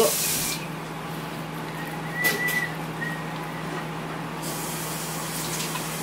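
A dull chef's knife slicing through raw beef on a plastic cutting board, with a brief cluster of light knocks and a faint squeak a little over two seconds in, over a steady low kitchen hum and hiss.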